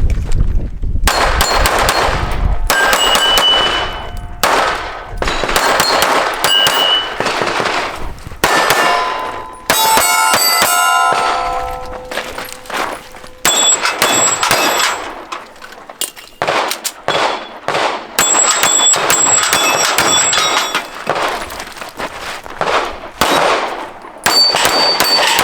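Pistol shots fired in quick strings, with steel targets clanging and ringing when they are hit, broken by short pauses between strings.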